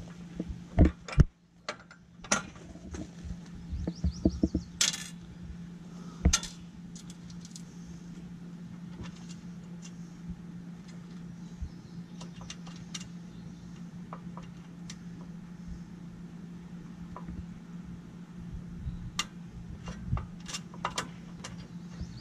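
Metal clinks and taps of screws, washers and hand tools being handled against an aluminium RV step frame, most of them in the first several seconds and sparser after that. A steady low hum runs underneath.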